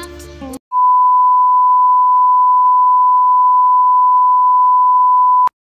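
Steady 1 kHz test-tone beep, the kind that goes with TV colour bars, held on one pitch for almost five seconds and cut off abruptly with a click near the end.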